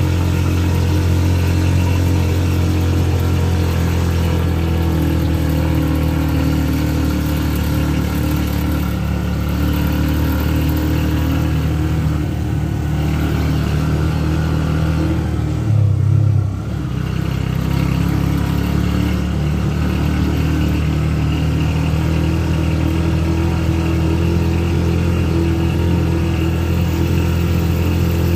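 The engine of the vehicle carrying the camera runs steadily as it drives along. It gets briefly louder about sixteen seconds in, then drops for a moment.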